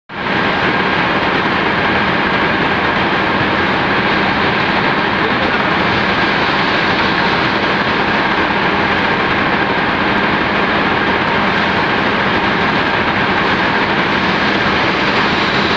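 Textile carding machine running: a loud, steady, even mechanical din with a faint steady whine, while the card's flats are ground.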